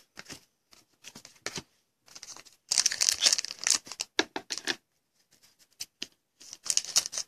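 Foil wrapper of a 2014 Panini Contenders football card pack crinkling and being torn open by hand, in irregular crackly bursts that are densest a few seconds in.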